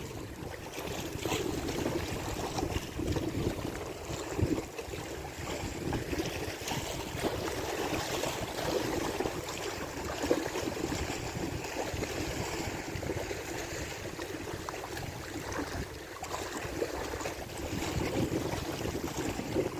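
Wind gusting on the microphone over small waves lapping against a rocky lake shore, a steady, uneven rush with no break.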